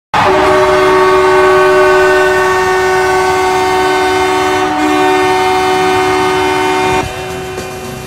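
Columbus River Dragons hockey goal horn: a loud, steady horn chord of several tones, sounding for about seven seconds to signal a home-team goal, then cut off near the end as music takes over.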